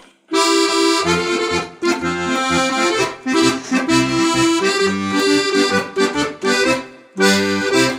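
Accordion playing an instrumental introduction to a song: sustained chords over changing bass notes, starting just after a brief silence, with a short break in the chords about seven seconds in before the singing begins.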